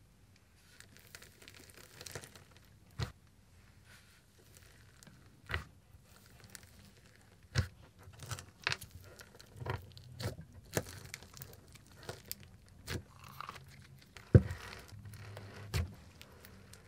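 Neon green slime with a crunchy bingsu-bead layer being pressed and squished by hand, giving irregular sticky clicks, pops and crunches. They come more often in the second half, with the loudest pop near the end.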